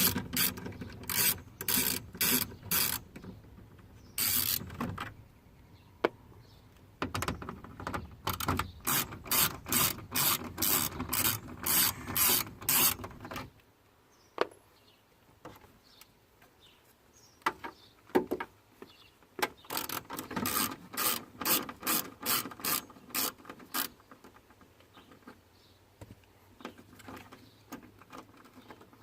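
Ratchet wrench with a 5.5 mm socket clicking in three runs of quick strokes, with single clicks between, backing out the screws of a truck door speaker.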